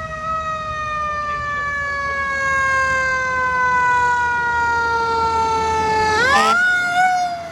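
Fire engine siren wailing: one long tone that slides slowly down in pitch, then climbs quickly back up about six seconds in and holds.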